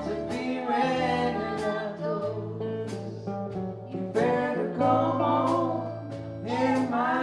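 A live blues band: women singing over electric bass guitars and a drum kit, with regular sharp cymbal and snare strikes.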